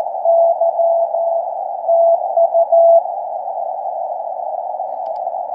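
Ten Tec Eagle transceiver's audio: a Morse code (CW) tone keyed in dots and dashes over the hiss of the 40-metre band. The code stops about three seconds in, leaving only the steady receiver hiss.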